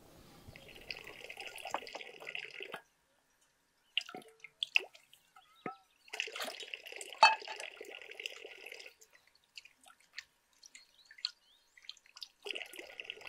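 Water pouring in three short runs, with single drops dripping in between.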